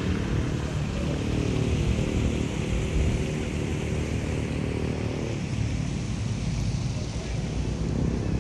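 A motor vehicle's engine running, a steady low rumble whose note changes about five seconds in.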